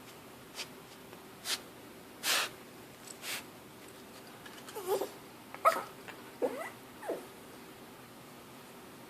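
Dog begging: four short breathy puffs, then a cluster of short whines that slide up and down in pitch.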